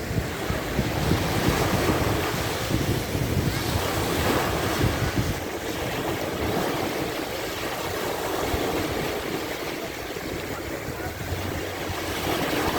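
Sea waves washing onto a sandy beach in a continuous surf wash that swells and eases, with wind buffeting the microphone.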